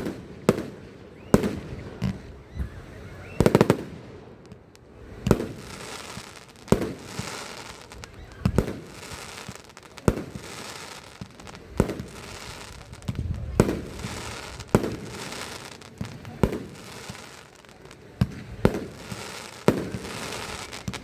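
Fireworks display: shells bursting in a steady series of loud bangs about once a second, with crackling between the bangs.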